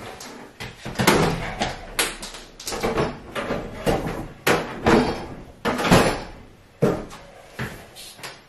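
A dozen or so sharp, irregularly spaced knocks and clunks as a Worcester Greenstar 25i combi boiler is lifted onto its metal wall-mounting bracket and hooked in place.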